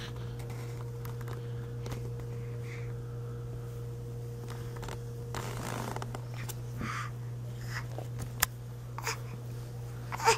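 Soft rustling of clothing and blankets as a baby shifts and reaches down to a cat, over a low steady hum. There is a louder rustle about halfway through and a few sharp little clicks near the end.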